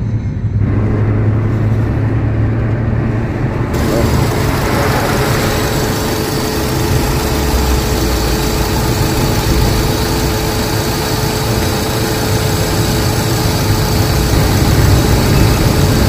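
Suzuki Swift's four-cylinder petrol engine running. For the first few seconds it is heard from inside the cabin while driving. From about four seconds in it idles steadily under the open hood, with a steady hum over a low rumble.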